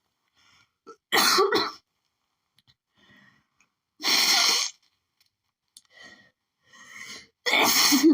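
A woman sneezing three times, about three seconds apart, with faint breaths between, during an allergic sneezing fit brought on by pollen.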